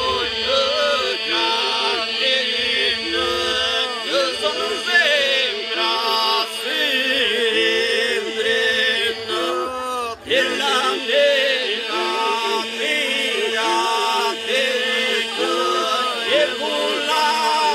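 Male a cappella group singing Albanian Lab iso-polyphony: a steady drone (the iso) is held under ornamented, wavering solo lines. The singing breaks briefly about ten seconds in.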